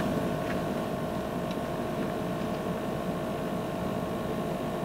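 Steady hum of an idling vehicle with a faint steady tone running through it. There is a short click right at the start.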